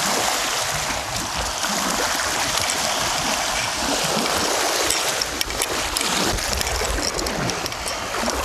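Steady rush of strong wind and water noise, with gusts rumbling on the microphone and a few faint clicks about five seconds in.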